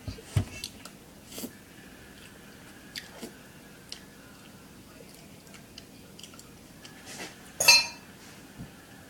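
Scattered light knocks and clinks of a utensil against a mixing bowl of brownie batter, with one louder clatter near the end.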